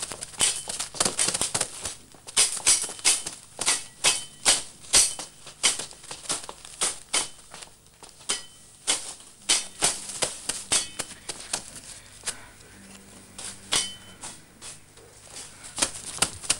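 Rustling and crunching of dry leaves and brush as someone moves through undergrowth: a string of sharp, irregular crackles.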